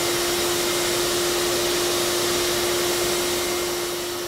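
Ash vacuum running steadily, sucking ash from a wood stove through a narrow angle tool: a steady motor whine over rushing air, easing slightly near the end.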